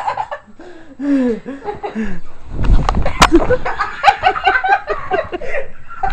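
Young women giggling and laughing, with a loud thump about three seconds in, followed by a run of rhythmic laughter.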